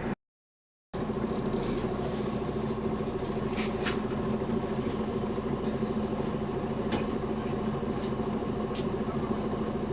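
Bus engine running with a steady drone and a fast pulsing from a leaking exhaust, with scattered squeaks and rattles over it. The sound drops out completely for about the first second.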